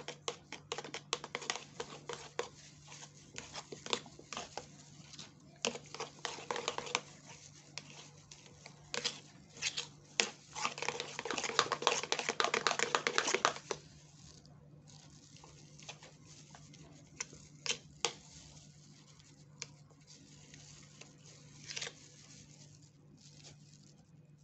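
A metal spoon stirring thick lotion in a bowl: wet squelching and scraping with quick clicks against the bowl. It is busiest and loudest in the first half, then thins to occasional clicks after about fourteen seconds.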